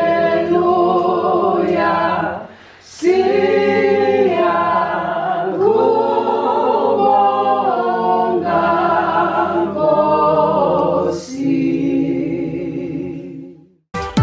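A group of voices singing a cappella in several-part harmony, in long sustained phrases with a short break about two and a half seconds in. The singing fades out near the end and gives way to recorded music.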